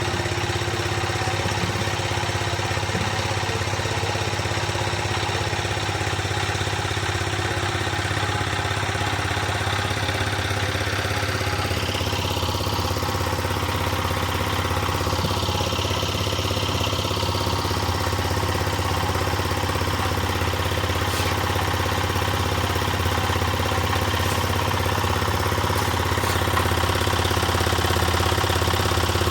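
Concrete mixer's engine running steadily, a constant low drone that grows slightly louder in the last few seconds.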